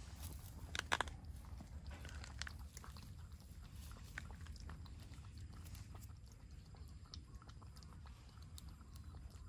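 A cat lapping milk from a bowl: faint, quick wet clicks of the tongue, with a couple of sharper clicks about a second in.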